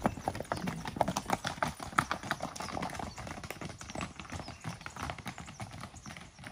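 Hooves of several saddled horses walking on a dirt trail, an irregular clip-clop that grows fainter as the horses move away.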